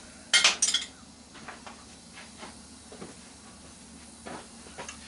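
Hand tools working at the wiring of a CRT monitor's deflection yoke: two short, sharp noisy sounds about half a second in, then faint scattered clicks and taps.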